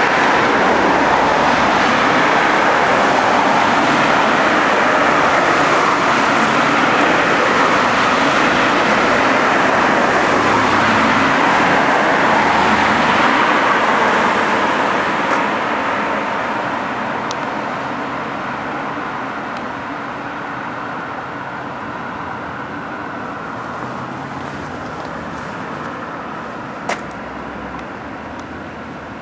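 Steady roar of road traffic that slowly fades away over the second half, with one sharp click near the end.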